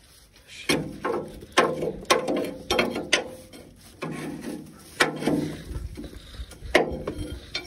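Hand tools working on a tractor's metal parts: irregular metallic clanks and ratcheting clicks, a few a second, each ringing briefly.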